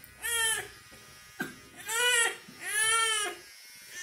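Infant crying in three wails, each rising then falling in pitch, the last the longest.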